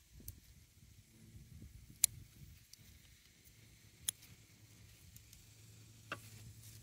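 Scissors snipping through Malabar spinach stems: three short, sharp snips about two seconds apart.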